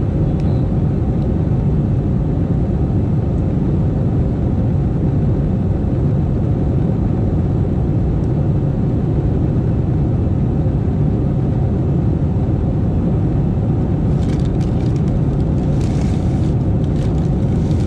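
Steady low roar inside a jet airliner's cabin: engine and airflow noise heard from a passenger seat, with a few faint clicks near the end.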